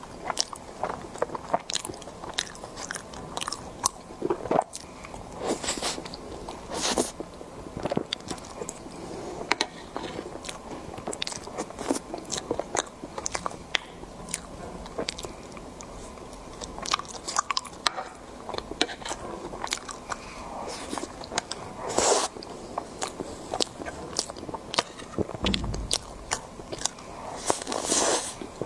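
Close-miked eating: steady chewing with many sharp crunching bites and wet mouth clicks.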